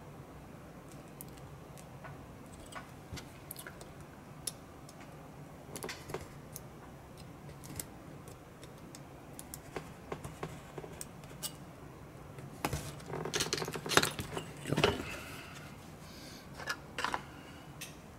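Small clicks and scratches of a blade cutting thin card on a cutting mat, with a louder run of scraping strokes about two-thirds of the way in.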